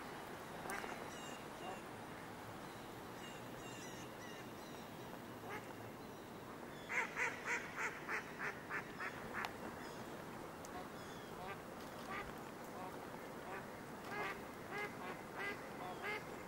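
Mallard ducks quacking: about halfway through, a run of about nine quick quacks, loudest first and then fading, followed by scattered softer quacks and another short run near the end.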